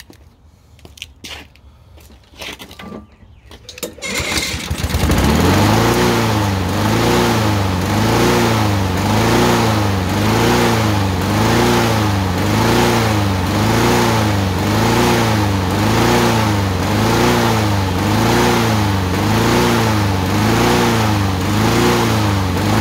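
Honda lawnmower engine starting after a few clicks and knocks, catching about four seconds in, then running with its speed hunting up and down about once a second. This is surging that a carburetor cleaning has not cured.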